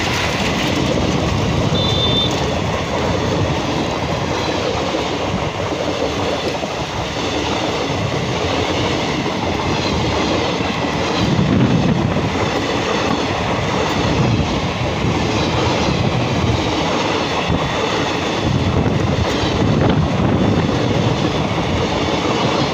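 Passenger coaches of an Indian express train passing close by at speed: a loud, steady rush and rattle of wheels on the rails as coach after coach goes by.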